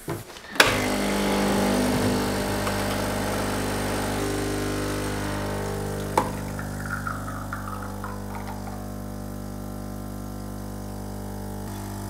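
DeLonghi ECP 35.31 espresso machine's vibratory pump buzzing steadily while pulling an espresso shot through a bottomless portafilter. It starts suddenly about half a second in and slowly gets quieter, with a short click about six seconds in.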